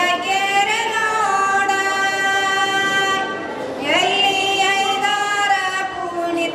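A voice singing long, sustained notes that glide slowly in pitch, in two phrases with a short break about three seconds in.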